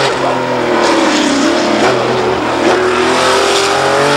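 Racing car's engine under hard acceleration on a hill climb, its pitch rising and falling back several times.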